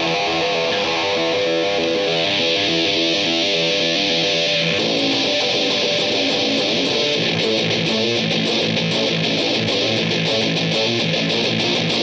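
Electric guitar heavily fuzzed through a Death By Audio Fuzz War pedal, boosted by an overdrive, playing a riff. About five seconds in it changes to a quicker, choppier pattern of repeated strokes.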